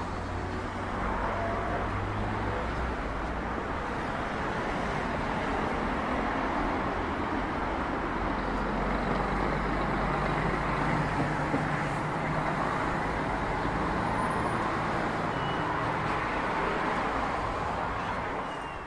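Steady city street traffic: cars driving past on a busy road, with a low engine hum underneath. It falls away just before the end.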